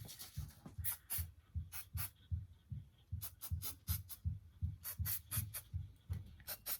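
Background music with a steady low drum beat, about three beats a second, and crisp high ticks over it.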